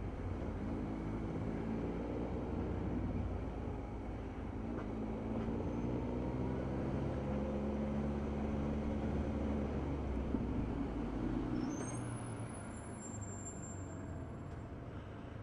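Motorcycle engine running in slow city traffic, its pitch rising and falling with the throttle, then easing off and going quieter about eleven seconds in as the bike slows. A few faint high thin tones come near the end.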